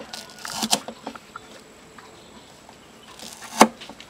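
Cleaver chopping lemongrass stalks on a thick wooden chopping board: a few chops in quick succession about half a second to a second in, then one sharp, loud chop near the end.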